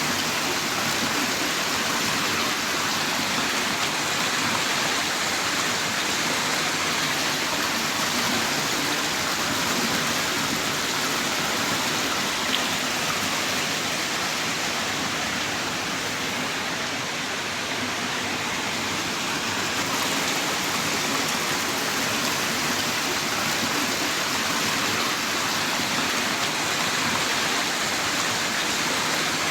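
Heavy rain downpour falling steadily, an even, unbroken hiss of rain, with one faint tick about halfway through.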